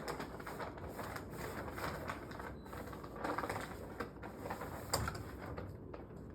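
Hardware being handled: irregular light clicks and rattles, with one sharper knock about five seconds in.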